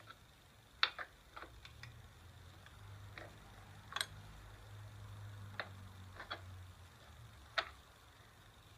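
Scattered sharp metallic clicks and clinks of wrenches on a motorcycle's rear chain adjuster as its lock nut is worked loose, about ten at irregular intervals, with a faint low hum through the middle.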